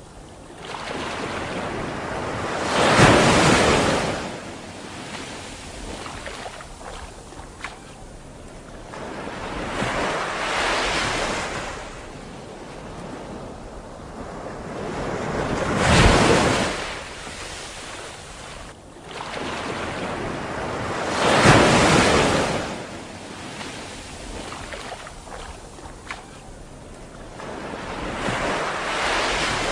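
Sea surf: waves washing onto a beach. The rushing noise swells and falls back five times, about every five to six seconds.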